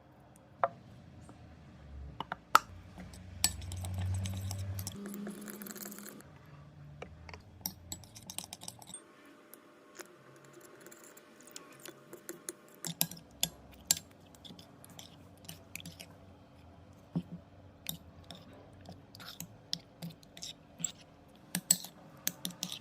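Clear slime being mixed and handled in a container: irregular sharp clicks and taps, with a louder stretch of low rumbling and hiss about two to six seconds in.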